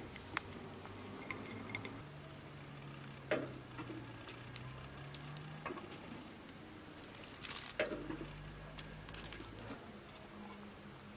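Soft scattered taps and rustles of hands working pastry on a baking tray, over a low steady hum, with a couple of louder knocks about three seconds and seven and a half seconds in.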